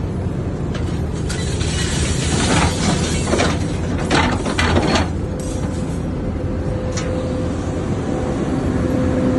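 Excavator engine running with a hydraulic scrap magnet, and scrap metal clanking and rattling in a run of sharp hits from about two seconds in to halfway, as scrap drops from the magnet into a steel skip bin. A steady whine comes in about halfway through.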